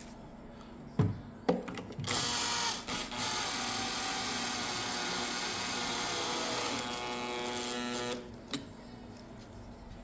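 A handheld electric power tool runs steadily for about six seconds and then stops abruptly, with its pitch sagging slightly under load. Two sharp knocks come just before it starts and a click comes just after it stops.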